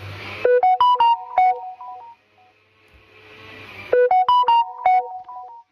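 A short synthesized music cue played twice: each time a swelling whoosh leads into a quick run of bright staccato keyboard notes.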